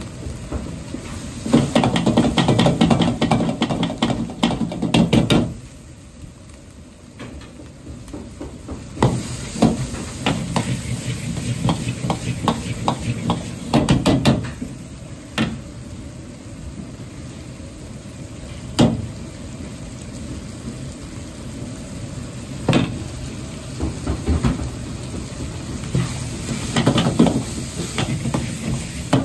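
Ground pork frying in a large wok while a metal wok ladle stirs and scrapes it, with sizzling under the clatter of ladle on wok. Two heavy spells of rapid scraping and clanking come in the first half, then single sharp clanks every few seconds.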